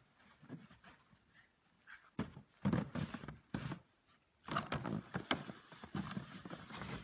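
A young dog barking in short bursts, several times, starting about two seconds in.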